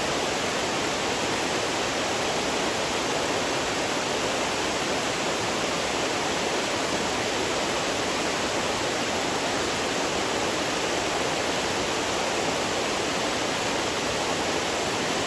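Waterfall rushing: a steady, even roar of falling water with no change throughout.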